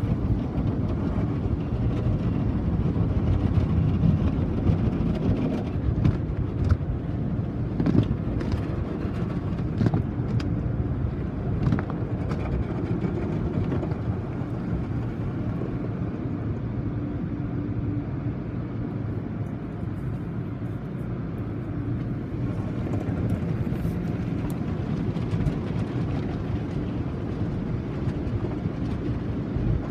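Automatic car wash heard from inside the car: a steady low rumble of the wash machinery and spraying water, with the hanging soft-cloth strips slapping and rubbing over the windshield. Scattered knocks and slaps come mostly in the first half.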